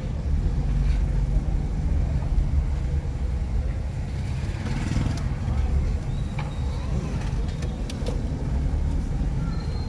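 Street ambience in a busy lane: a steady low rumble of motor vehicle noise with faint voices, and a few sharp clicks in the second half.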